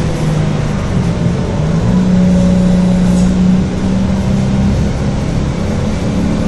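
Mercedes-Benz O-500UDA super-articulated bus's diesel engine running under load, its pitch stepping up about a second and a half in, holding, then dropping back near the five-second mark.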